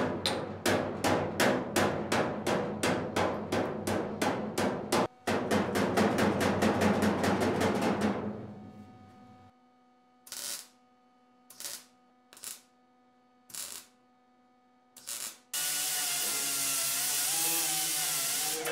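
Hammer striking a steel tool held against a sheet-steel body panel, folding over its lip: steady blows about four a second, then a faster run that fades out about 8 s in. Then five short MIG welding tacks, and from about 15 s in an angle grinder grinding the welds, steady and loud.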